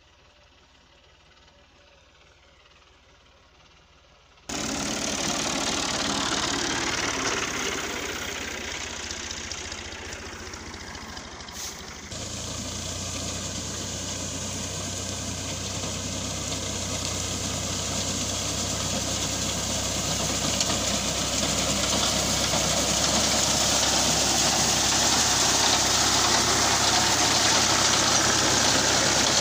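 Tractor diesel engine running while a tractor-mounted reaper cuts standing wheat, a dense mechanical noise with a steady low hum. The sound is faint at first, becomes much louder suddenly about four and a half seconds in, and steps up again near twelve seconds.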